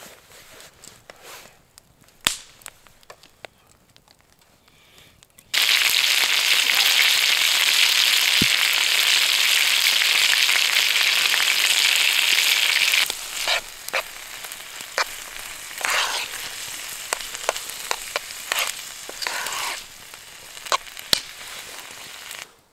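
After a few seconds of faint scattered clicks, a steak starts sizzling loudly and steadily in a frying pan over a wood fire. About halfway through it drops to a quieter sizzle with spoon clicks and scrapes as noodles and vegetables are stirred in the pan.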